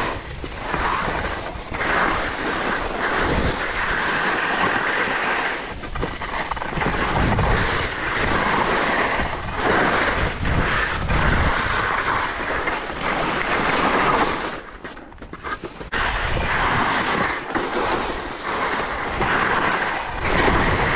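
Skis sliding and scraping over soft spring snow, a continuous rough hiss that swells and fades with each turn, with wind buffeting the microphone. It briefly drops away about fifteen seconds in.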